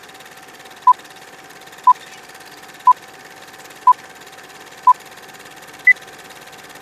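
Electronic countdown beeps: five short, even beeps a second apart, then a sixth at a higher pitch, over a faint steady hum and hiss.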